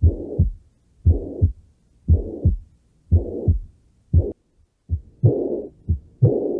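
Recorded human heart sounds with a murmur: about one beat a second, each beat two low thumps with a noisy murmur filling the gap between them. About four and a half seconds in the rhythm breaks briefly and resumes with extra sharp clicks in each beat.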